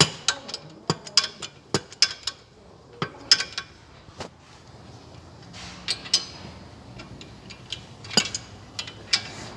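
Hand wrench clicking and clinking on the steel bolts of a brake caliper bracket: sharp, irregular metallic clicks a fraction of a second to a second apart as the wrench is fitted and worked.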